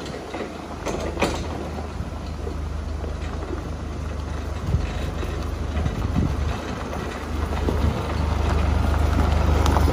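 Forklift engine running as the forklift drives toward the listener, a steady low hum that grows louder over the last few seconds as it comes close. A sharp click sounds about a second in.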